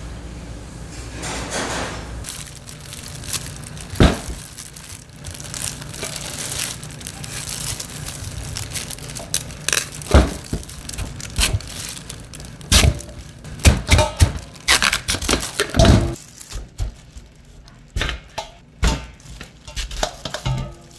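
Food preparation: irregular knocks and clatter of kitchen utensils and containers being handled, coming thicker and louder in the second half, over a steady low hum.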